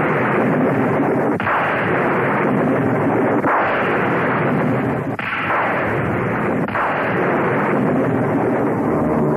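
Cartoon sound effect: a string of loud booming blasts that run into one another. A new one breaks in about every second and a half to two seconds, each falling in pitch as it fades.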